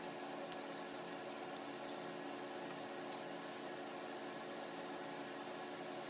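Scattered faint clicks and ticks of a small screwdriver and fingers handling a clear acrylic GPU water block as the terminal link's screws are driven into the acrylic, over a steady low hum.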